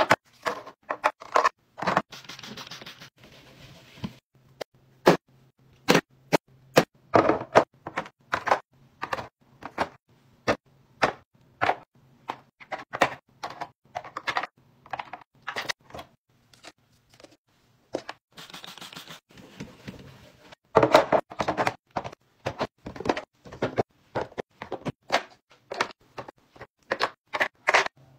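Plastic bottles, jars and makeup cases set down one after another into clear plastic drawer organizer bins: a quick, irregular run of clicks and knocks, with two short scraping stretches.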